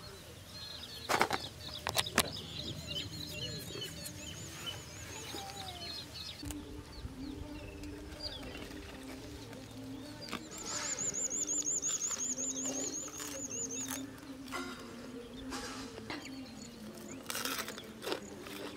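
Birds chirping and calling in the open, with a high, fast warbling trill in the middle that is the loudest part. There are two sharp clicks, about one and two seconds in.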